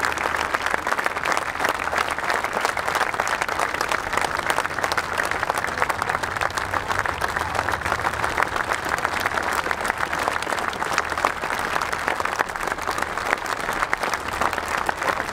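Large crowd applauding steadily: dense, unbroken clapping.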